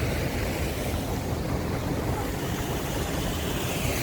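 Wind rumbling on the microphone over a steady rush of water.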